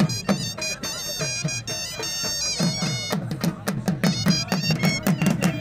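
Dhol and surna playing attan dance music: the surna's piercing reed melody over fast, steady dhol beats.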